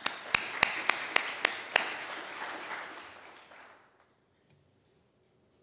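Congregation applauding. One close, sharp clapper keeps an even beat of about three or four claps a second for the first two seconds, while the spread of clapping fades away by about four seconds in.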